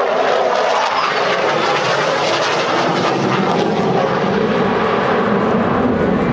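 Loud, steady noise of an aeroplane's engines.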